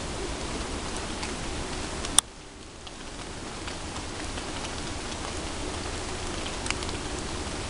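Steady, rain-like hiss of outdoor background noise with scattered faint ticks. A single sharp click comes about two seconds in, after which the hiss drops away and slowly builds back.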